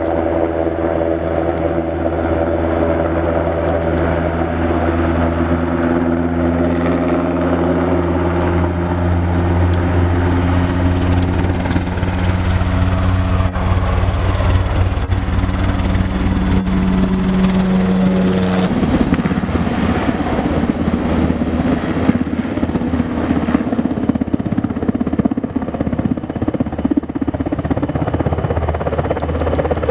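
NH90 Sea Lion helicopter in flight, its main rotor and twin turboshaft engines running with a steady low drone and a set of steady whining tones. About two-thirds of the way in the sound changes abruptly to a rougher, noisier rotor sound with the tones gone.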